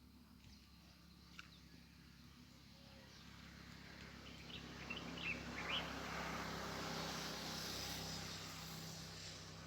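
Small birds giving a few short chirps, while a passing vehicle's noise with a low hum slowly swells, becomes the loudest sound past the middle, and fades toward the end.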